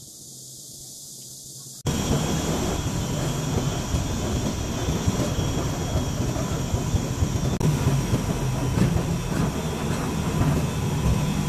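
A faint hiss that slowly grows, then about two seconds in a sudden switch to the steady rumble and road noise of a moving city bus heard from inside, with a low engine hum under it.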